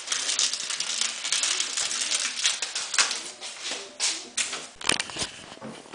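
Rustling and scraping of things being handled, with many small clicks and a couple of sharper knocks, about three seconds in and near five seconds.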